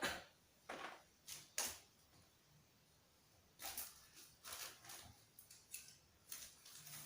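A woman breathing out hard and giving a series of short, breathy coughs, done as effective-cough practice to bring up phlegm.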